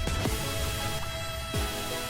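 Electronic background music with steady held notes and a pulsing beat.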